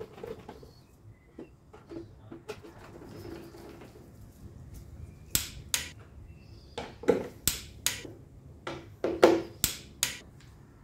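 T30 Torx screwdriver tightening the screws of a motorcycle's airbox cover to 3 Nm. Faint ticks and scraping at first, then a run of about a dozen sharp clicks in the second half, roughly half a second apart.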